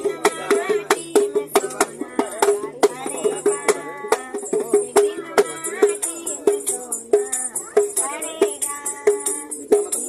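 A woman singing a Hindi song to her own dholak, the hand drum beating a quick, steady rhythm under her voice.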